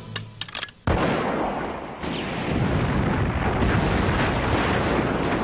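Cartoon gunshots and explosion: a few quick sharp cracks, then about a second in a sudden loud blast as a wooden shack is shot and blown up, followed by a long rumble that runs on to the end.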